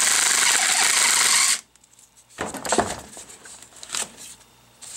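Cordless drill-driver with an inverted Torx bit running steadily, backing a screw out of a hydraulic pump's pulley, and stopping sharply about a second and a half in. A little later come a few light metal clinks and clatters as the loose screw and the pump are handled.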